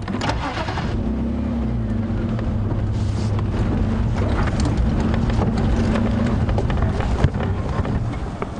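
Safari game-drive vehicle driving off-road, its engine running as a steady low hum that eases off about six seconds in, with scattered knocks from the vehicle over the rough ground.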